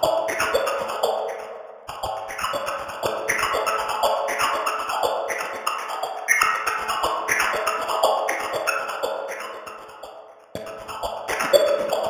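TV channel ident music run through a "washing machine" audio effect: warbling, phased pulses about twice a second. The sound fades and drops out briefly twice, about two seconds in and near ten and a half seconds.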